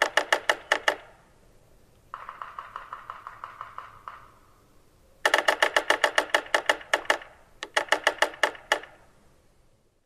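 Yellow-bellied sapsucker drumming on wood: bursts of rapid knocks in an irregular, Morse-code-like cadence that varies in rate and trails off at the end of each drum. A loud burst ends about a second in, a softer, faster roll follows, then two more loud bursts from about five seconds in.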